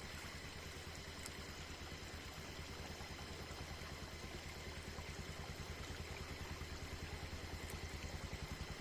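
Motorcycle engine running slowly at low revs, a steady low throb with an even, rapid pulse, growing slightly louder near the end.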